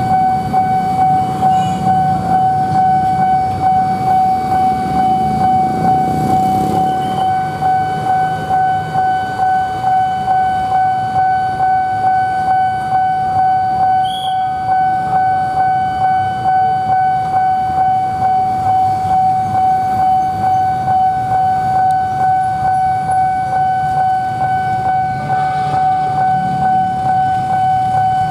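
Railway level crossing warning alarm sounding a steady, unbroken high electronic tone. Underneath it is the low rumble of motorbike and road traffic.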